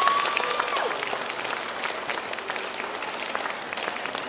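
Applause from a group of children and adults, many hands clapping at once. A brief high held note sounds over it at the start and drops away before a second in.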